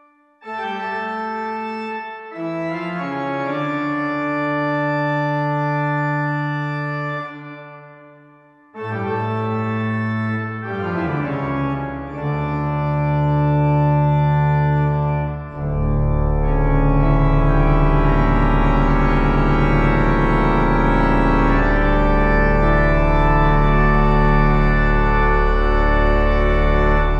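Pipe organ playing slow sustained chords. The sound dies away briefly about eight seconds in, then resumes, and past the middle a fuller, louder registration comes in over a deep steady pedal bass.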